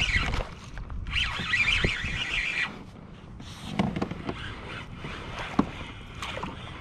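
Daiwa BG3000 spinning reel buzzing for about a second and a half as line is worked in with a fish coming onto the line, followed by a few sharp knocks.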